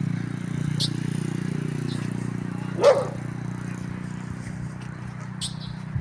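A small motorcycle engine hums past and fades away, with one short bark about three seconds in.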